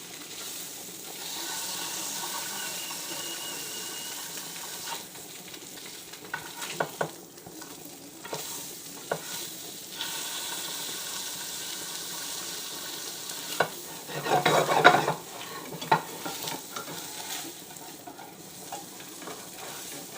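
Fish frying in a pan with a steady sizzle and a few sharp knocks against the pan. A louder rattling burst comes about three-quarters of the way through.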